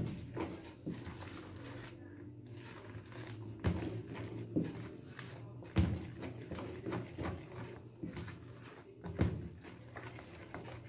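A spoon beating thick cake batter by hand in a plastic bowl, with irregular knocks of the spoon against the bowl about once a second.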